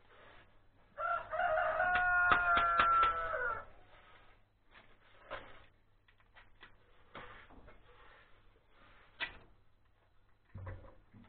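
A rooster crowing once, one long call lasting about two and a half seconds. Light clicks and knocks are heard before and after it.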